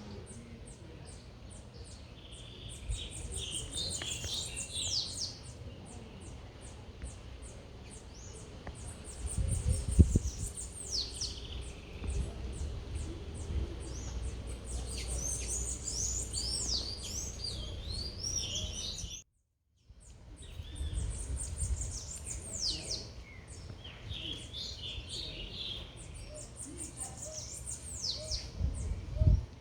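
Several songbirds calling: fast series of high chirps, repeated downward-sweeping whistled calls and chattering notes, over a low rumble that swells now and then. The sound cuts out completely for about half a second roughly two-thirds of the way through.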